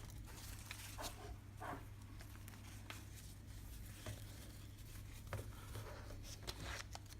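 Faint handling noise: scattered light clicks and rustles of hands moving a leather camera strap and its buckle, over a steady low hum.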